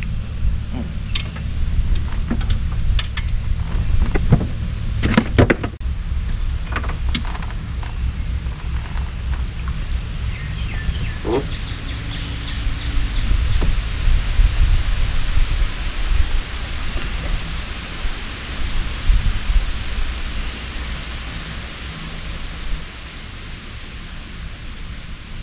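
Wind rumbling and buffeting on the camera microphone, with a few sharp clicks and taps in the first seven seconds or so.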